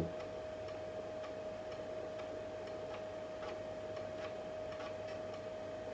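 A 3.5-inch floppy drive reading an install disk: faint, irregular ticks of the head stepping across the tracks, over a steady high hum from the machine.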